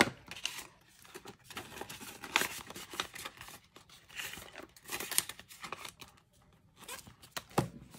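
Clear plastic binder pouches being handled, crinkling and rustling unevenly, with a few sharper snaps of the plastic.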